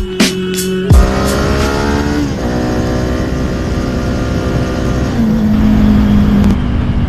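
Kawasaki Ninja 400 parallel-twin engine accelerating, its pitch climbing, dropping at an upshift a little over two seconds in, then climbing again with another shift around five seconds in, under steady wind rumble on the helmet microphone. A beat of music cuts off about a second in.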